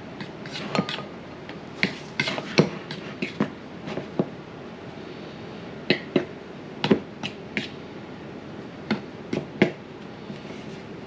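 Metal fork clicking and tapping against a mixing bowl in irregular bunches as fish pieces are turned and coated in flour.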